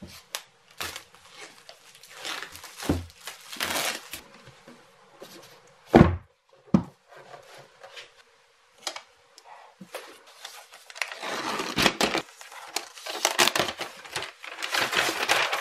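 Cardboard and paper packaging of a new laptop box being handled and opened: scattered crinkling and rustling, with a loud thump about six seconds in and denser rustling in the last few seconds.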